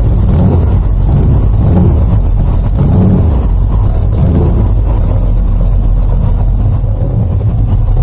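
Ford GT40 replica's V8 engine idling steadily, heard from behind the car at its exhaust.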